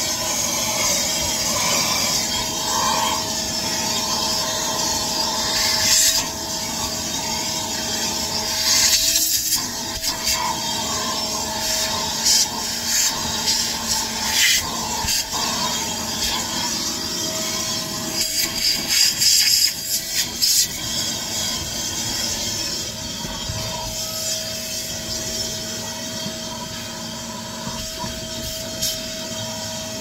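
Vacuum cleaner with a corrugated hose and metal wand running steadily with a constant whine over a rush of air. Irregular louder surges come as the nozzle is worked over the car's interior.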